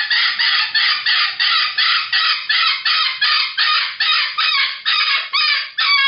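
Sulphur-crested cockatoo screeching a fast, even string of loud, harsh calls, about three a second.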